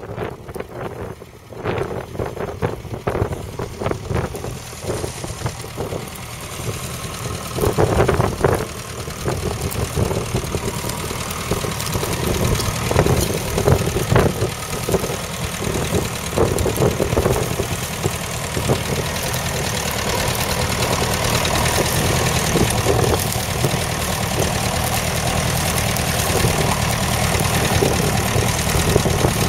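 Ferguson TEF20's four-cylinder diesel engine running steadily under load as the tractor pulls a plough, growing louder as it comes alongside.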